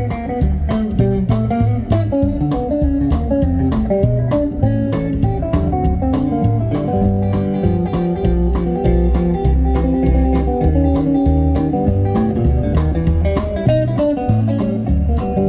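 Live rockabilly band playing an instrumental break: electric guitar lead over a walking bass line and a steady drum beat.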